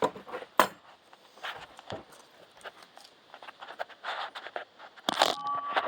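Metal tools being handled: scattered clicks and clinks, with a sharp click about half a second in and a louder clatter near the end that leaves a brief metallic ring.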